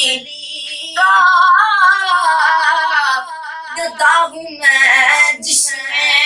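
A boy singing an Urdu naat solo, in long held phrases with a wavering pitch.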